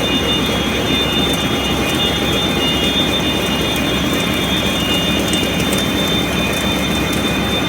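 Hasmak CNC horizontal boring mill running: a steady, dense machine noise with several thin high whines held at an even pitch.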